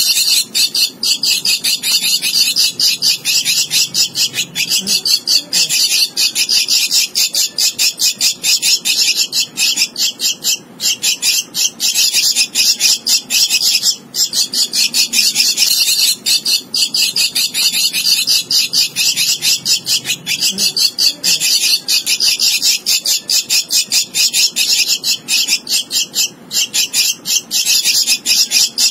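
Javan myna nestling begging for food: a continuous, rapid, harsh high-pitched chatter of calls, many a second, broken only by a few brief pauses.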